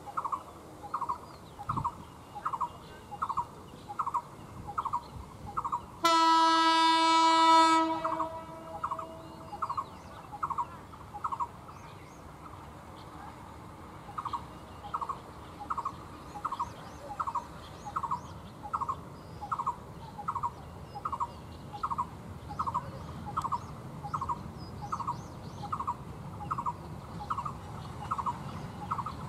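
Diesel locomotive's horn sounds one steady blast of nearly two seconds, about six seconds in, then a low engine rumble builds near the end as the locomotive draws closer. A short high chirp repeats about every two-thirds of a second throughout.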